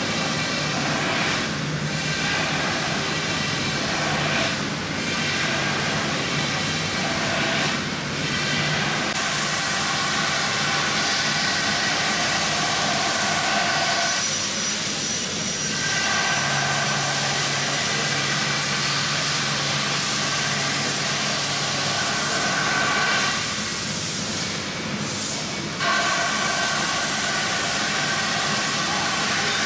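CNC milling machine's spindle cutting foam: a steady, loud, noisy whir with a pitched whine in it. The whine drops out briefly twice, about midway and again near the end.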